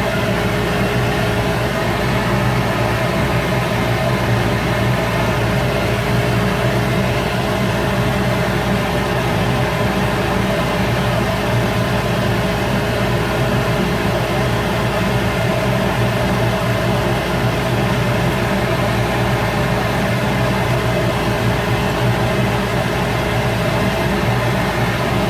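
Shop Fox W1836 midi wood lathe running steadily, a constant motor hum with a steady whining tone and no change in speed.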